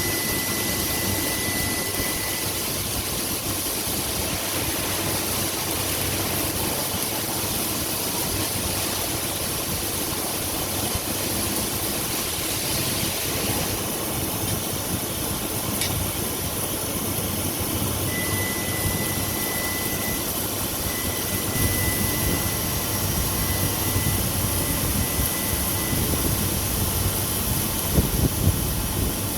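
Steady running noise of a submerged arc welding setup hardfacing a sheave, with a faint thin high tone that comes and goes and a few knocks near the end.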